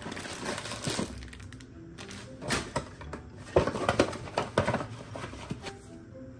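Cardboard cake-mix box, instruction sheet and paper cupcake liners being handled, crinkling and rustling in several short bouts.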